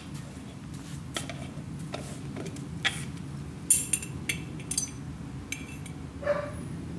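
Metal tongs clinking and tapping against a glass jar as it is picked up and handled, a series of sharp clinks over a steady low background hum.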